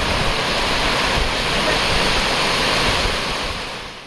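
Waterfall rushing: a loud, steady noise of falling water that fades out about three seconds in.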